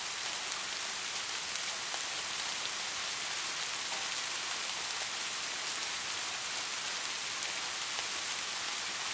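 Steady, even white-noise hiss, strongest in the upper range, with faint scattered ticks and no change throughout.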